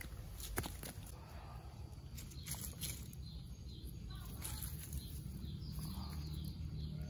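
Faint outdoor ambience with a low rumble, a few sharp clicks in the first half, then a bird calling a run of short falling chirps, about three a second.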